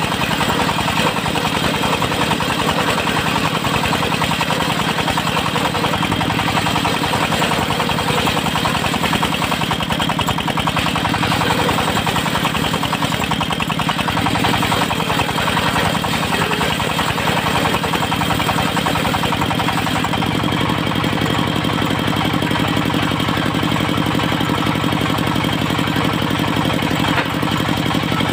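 Engine of a portable circular sawmill running steadily, its note shifting slightly about two-thirds of the way through.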